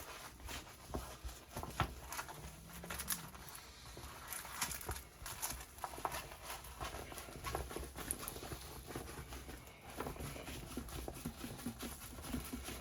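Diamond painting kit packaging being handled and opened: a steady run of irregular rustling, clicks and taps.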